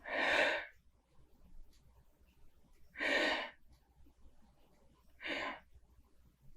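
A man breathing in hard through his nose while smelling a glass of pilsner: three short, noisy sniffs.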